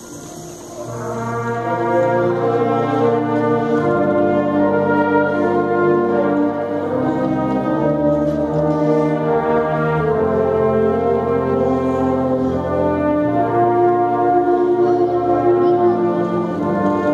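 Children's symphonic wind band playing held, brass-heavy chords. The band comes in softly about a second in and swells to full volume, then holds chords that change every second or two.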